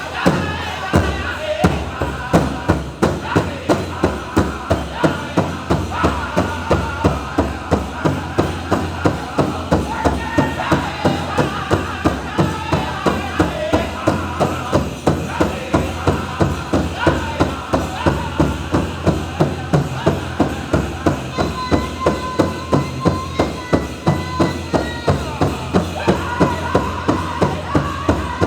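Powwow drum group singing a chicken dance contest song: many men's voices in chorus over a steady, fast, unison beat on a big drum.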